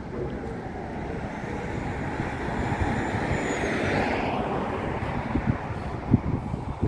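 A car passing close by on the road, its tyre and engine noise swelling to a peak about halfway and falling away in pitch as it goes. Wind buffets the microphone with a few low thumps near the end.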